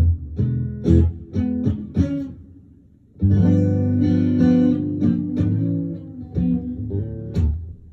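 Guitar playing blues: short, clipped strummed chords, a brief pause, then a loud chord left ringing for a couple of seconds before more short strums.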